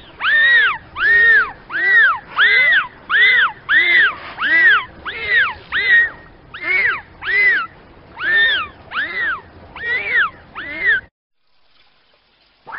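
Dolphin whistling: a run of about twenty short whistles, each rising and then falling in pitch, about two a second, stopping about eleven seconds in.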